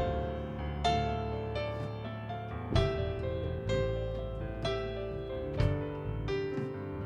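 Piano or electric keyboard playing the instrumental introduction to a worship song in the key of G: sustained chords over low bass notes, with a new chord struck about once a second.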